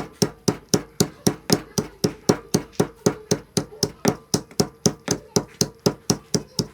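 Peanuts being pounded with a small mortar and pestle: a steady run of even pestle strikes, about four a second, as the nuts are crushed to a coarse powder.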